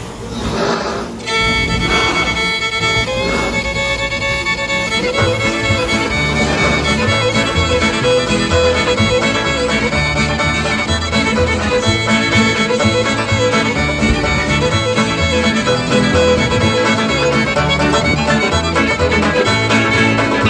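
Fiddle-led bluegrass-style music with a steady beat, coming in fuller about a second in.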